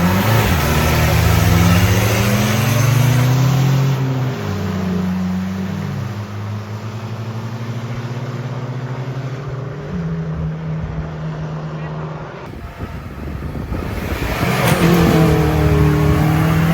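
Engine of a mud-drag 4x4 revving hard on a run: the pitch climbs, drops back and climbs again, then holds high for several seconds. It breaks off about twelve seconds in, and another engine revs up and down near the end.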